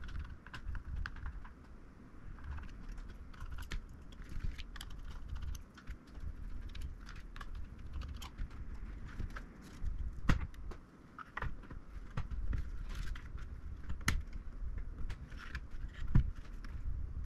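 Irregular small clicks and taps of tools, screws and card parts being handled during a graphics card teardown, over a low rumble, with a few sharper knocks about ten, fourteen and sixteen seconds in.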